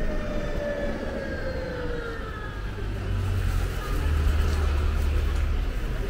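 Elizabeth line electric train running, with a steady low rumble and a whine from its traction motors that falls slowly in pitch over the first two or three seconds and then fades out.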